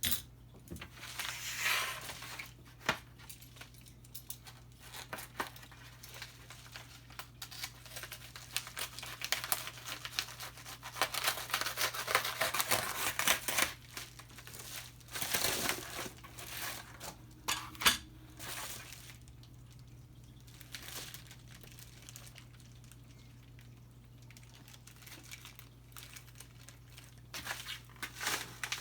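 Packaging being torn open and handled: irregular bouts of crinkling and tearing, busiest in the middle, with a sharp click a little past halfway.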